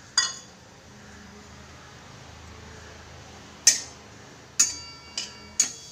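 Metal spatula clinking against a hammered stainless-steel bowl while crumbled mawa (khoya) is stirred for roasting. There is one sharp clink near the start, then four more in the last two seconds, the later ones ringing briefly.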